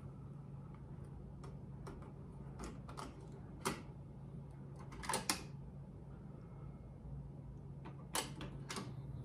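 Plastic clicks and clacks of a cassette being loaded into a front-loading cassette deck: a single click, then a louder double clack as the tape goes in and the cassette door shuts, then two button clicks near the end. A low steady hum runs underneath.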